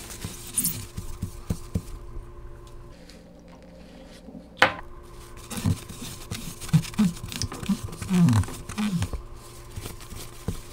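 A cloth rubbing and scrubbing a trailer window's glass and frame to work off leftover sticker adhesive: rubbing strokes, light knocks and short squeaks, with one sharp falling squeak about four and a half seconds in and a busier run of squeaks and bumps after it.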